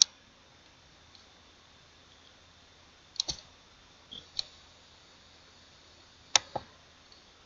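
Computer mouse clicking, a handful of short single and paired clicks spaced a second or more apart.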